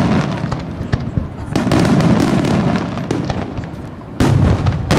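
Aerial firework shells bursting in quick succession, with loud bangs about one and a half seconds in and again just after four seconds, and crackling between them.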